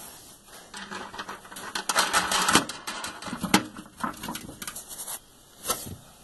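Metal hardware and a hand tool clicking, rattling and scraping while the fastener of a tractor fender handle is tightened from underneath, with a couple of sharper knocks.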